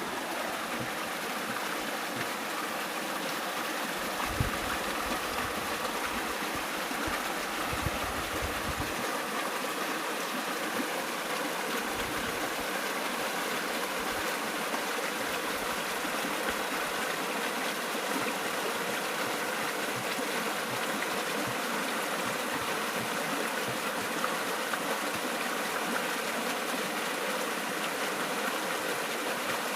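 Steady rush of flowing river water. Wind buffets the microphone in gusts during the first several seconds.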